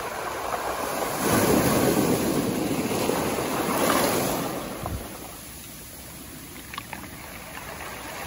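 Small ocean wave breaking on a beach of rounded cobbles, swelling about a second in and loudest until about four and a half seconds, then a quieter hiss as the water drains back through the stones.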